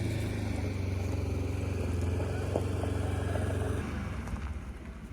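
Side-by-side utility vehicle's engine running with a steady low drone that drops away about four seconds in.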